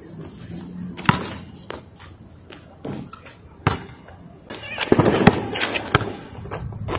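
Basketball bouncing on asphalt: a few separate sharp thuds about a second apart, then a busier, noisier run of bounces and knocks about four and a half seconds in.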